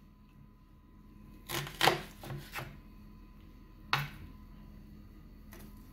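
Kitchen knife slicing half a red onion on a bamboo cutting board: a quick run of four chops, the blade knocking on the board, starting about one and a half seconds in, then one more chop near four seconds.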